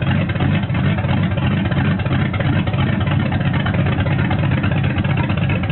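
Dodge Charger R/T's V8 engine running steadily with a deep low rumble, holding an even speed.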